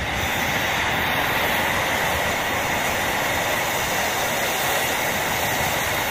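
Surf washing onto a sandy beach, a steady rush of noise.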